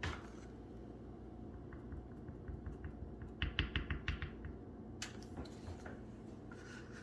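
A quick run of light clicking taps, about six a second for roughly three seconds, loudest in the middle of the run, over a low steady background hum.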